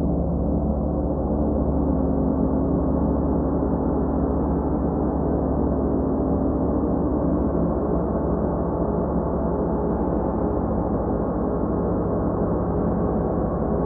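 Ambient drone music: many steady, overlapping tones held at an even level, with no clear strikes or beat.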